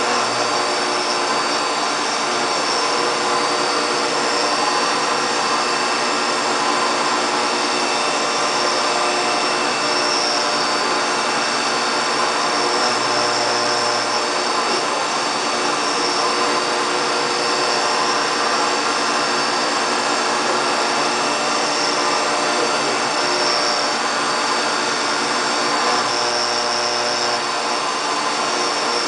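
High-speed CNC milling machine running steadily while machining aluminium, a continuous high spindle whine over a dense cutting noise.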